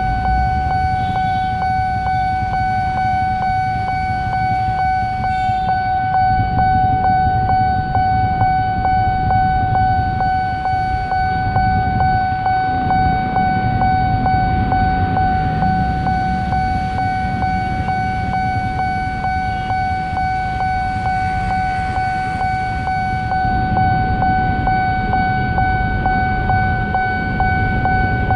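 Level-crossing warning bell ringing in a fast, even rhythm of strikes that run together into one steady high tone, over the low rumble of road traffic.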